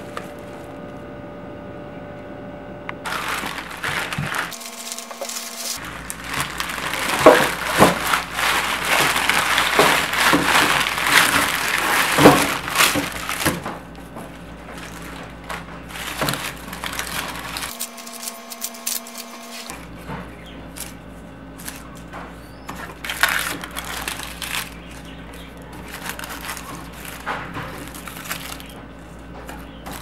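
Groceries being handled: a long stretch of dense crackling and rustling from plastic packaging and dry onion skins, then scattered softer clicks and knocks as onions are set into a wooden crate, all over a steady low hum.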